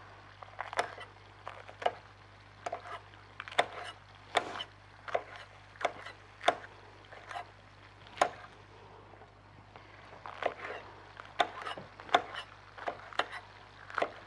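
Kitchen knife slicing green pepper on a cutting board: a string of sharp, uneven knocks as the blade strikes the board, about one or two a second, with a short pause about two-thirds of the way through.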